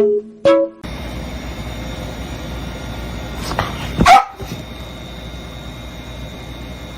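A dog gives a short, sharp bark about four seconds in, with a smaller one just before it, over a steady background hiss. A few plucked music notes end about a second in.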